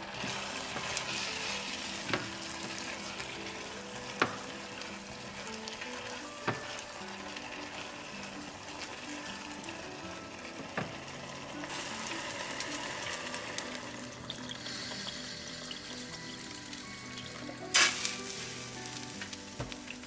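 Vegetables sizzling in a black earthenware pot, stirred with a wooden spatula that knocks against the pot now and then, with one loudest clack near the end.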